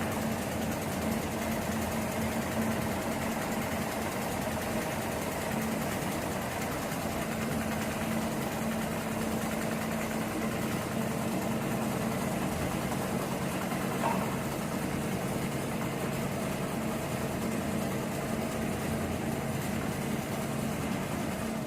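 HEMS 250 CNC programmable frame-type pattern sewing machine running steadily, a constant mechanical hum with a fast, even stitching rattle.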